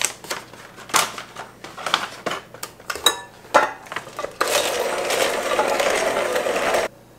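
Chocolate chips pattering into a mixing bowl as a series of quick clicks. About four seconds in, an electric hand mixer starts and runs steadily, its beaters churning the chips into cookie dough, then stops abruptly near the end.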